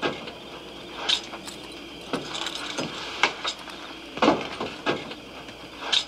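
Boots stepping slowly on wooden floorboards, a knock or creak about once a second.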